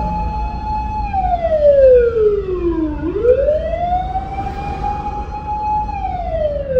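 Fire engine siren wailing. A held high tone slides down over about two seconds, climbs back up and holds, then starts falling again near the end, with a low rumble underneath.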